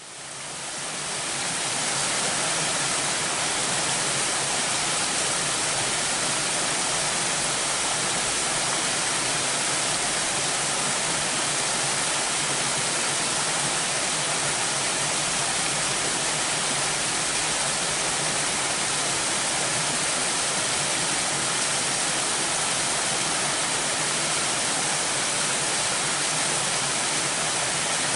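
Stream cascading over a small waterfall into a pool. A steady, even rush of water that fades in over the first two seconds.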